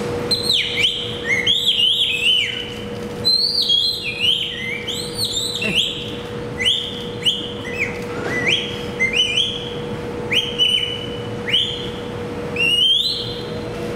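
Birdlike whistling: a long run of short whistled notes, one after another, each swooping up or down in pitch, with a steady hum underneath.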